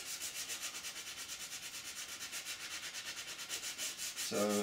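Dry sandpaper rasping back and forth by hand over a 3D-printed ABS plastic mould, in quick, even strokes about six or seven a second, taking down the printed layer lines.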